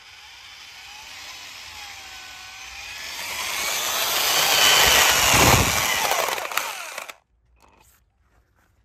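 Drill-driven mini chainsaw attachment running and sawing wood, its pitch wavering under load as it grows louder over about five seconds, then stopping suddenly about seven seconds in.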